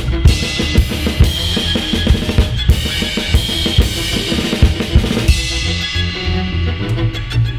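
Ensemble music over a busy drum-kit beat, with kick, snare and rim strikes over steady bass notes. About five seconds in, the bright cymbal-like hiss drops out and the beat thins while the low notes continue.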